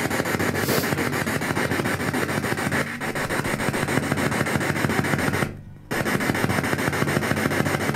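Radio static from a handheld spirit box sweeping through stations: a steady hiss chopped rapidly and evenly, with a short break a little past halfway.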